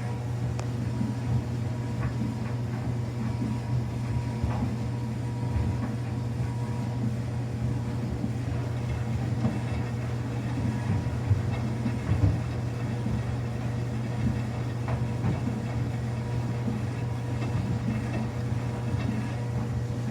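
Samsung washing machine running a quick-wash cycle with a load of towels: a steady low hum and rumble from the motor and turning drum.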